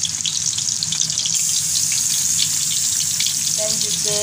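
Pounded garlic and shallots sizzling in hot oil in a wok: a steady frying hiss full of small crackles.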